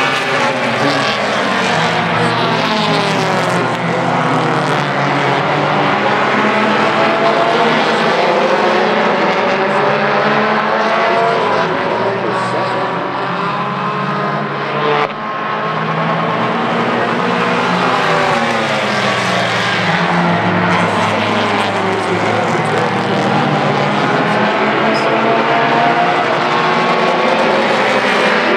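A pack of tuner race cars running on a paved oval, several engines revving at once, their pitch rising and falling as the cars accelerate down the straights and lift through the turns.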